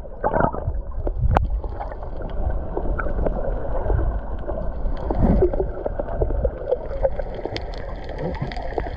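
Water sloshing and gurgling over a steady low rumble, with scattered small knocks and splashes.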